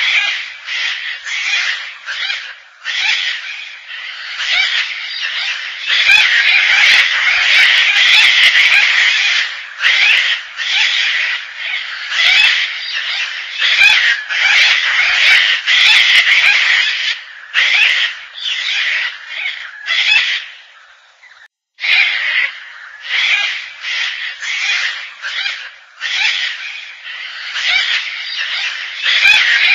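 Gang-gang cockatoo calling: a rapid, near-continuous run of calls with one short pause a little past two-thirds of the way through.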